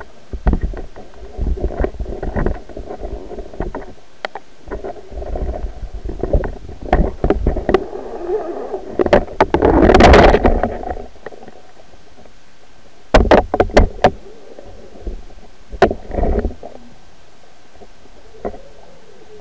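Underwater camera housing knocking and scraping as it drags over the seabed, with muffled low rumbles between the knocks; the loudest, longest scrape comes about ten seconds in, then two short clusters of sharp knocks before it settles.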